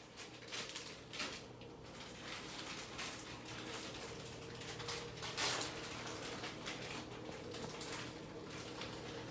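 Faint handling noises, a few soft knocks and rustles, over a steady low hum.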